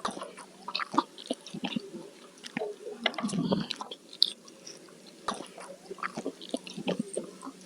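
Close-miked chewing of a person eating: wet smacks and many small irregular mouth clicks, with a few louder bites.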